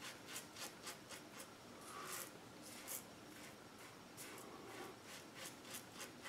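WCS 3D Wrap double-edge safety razor with a Blue Bird blade scraping through lathered stubble on the neck in repeated short strokes, faint, during the across-the-grain pass.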